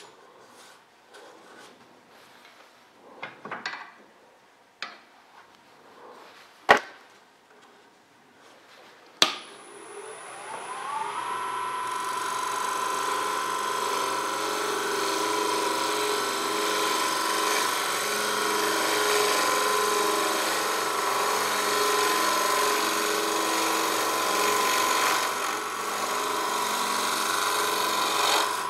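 A wood lathe stands stopped, with a few sharp knocks as tools are handled; about ten seconds in, its motor spins up with a rising whine and then runs at steady speed. A bowl gouge cuts the outside of a very dry elm bowl, a steady shearing hiss over the motor whine.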